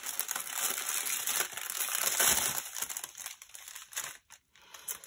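Clear plastic packaging crinkling and rustling as a strip of small bagged diamond painting drills is unwrapped and handled. The crinkling thins out about three seconds in.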